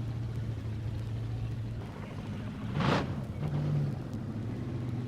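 Drag racing car engine idling with a steady note, given a sharp throttle blip about three seconds in that briefly raises the pitch before it settles back.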